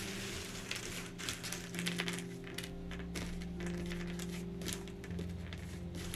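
Thick cardboard jigsaw puzzle pieces clicking and rattling against each other and the tabletop as they are sifted and picked out by hand, over soft ambient synth music.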